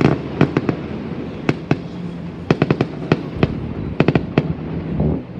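Aerial fireworks going off, many sharp bangs and crackles in irregular clusters, with a louder burst near the end.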